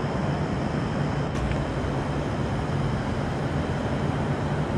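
Light-rail train running, a steady noise with a low hum underneath.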